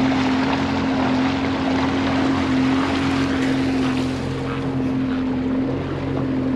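Outboard motor running steadily at low speed, pushing the boat along, with an even hiss of water and wind underneath.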